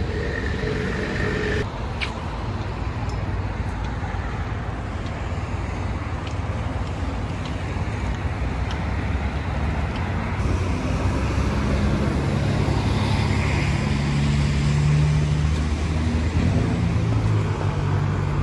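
City road traffic: cars and vans passing and engines running at a busy street crossing, with a deeper steady engine hum building in the second half.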